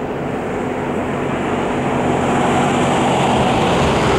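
2M62U twin-section diesel locomotive's two-stroke V12 engines running with a steady drone under load as they pull a freight train, with a rushing rolling noise swelling toward the end.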